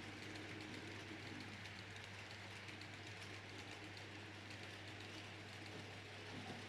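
H0 model train running on the layout: a steady quiet whir with a constant low hum and faint ticking from the mechanism and wheels.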